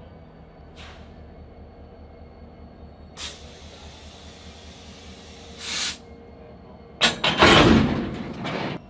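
Diesel freight locomotive running slowly with a steady low engine hum, broken by short hisses of air about 3 and 6 seconds in. About 7 seconds in comes a louder burst of air hiss and rumble that lasts over a second.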